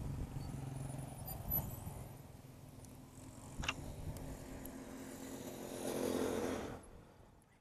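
Honda CRF250L's single-cylinder engine running at low revs with an uneven note, with a couple of sharp clicks. Its pitch rises near the end before fading out. The engine keeps stopping on a bad tank of petrol.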